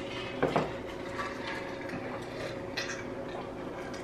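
Two people drinking water from large insulated bottles: faint swallowing and a few small clicks of the bottles and their lids.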